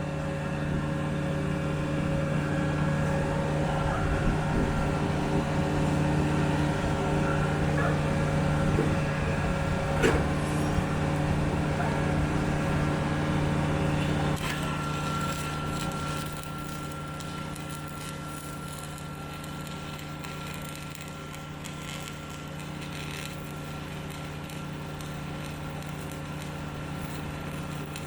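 An engine running steadily with a low, even hum, with a single sharp knock about ten seconds in; the hum gets quieter about sixteen seconds in.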